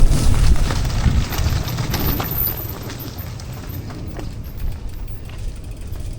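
Heavy low rumble on the microphone with irregular sharp clicks and knocks, loudest in the first two seconds and easing off after about three seconds.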